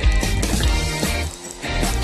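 Background music with a heavy bass line, dipping briefly a little past the middle.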